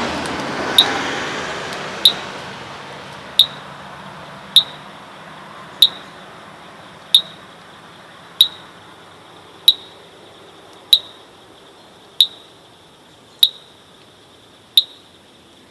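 A night caller along a forest roadside gives a short sharp 'gaek' pip again and again at a steady pace, about one every 1.3 seconds, twelve times. Locals take the call for a wild snail, but the caller is unseen. A rushing noise fades away over the first few seconds.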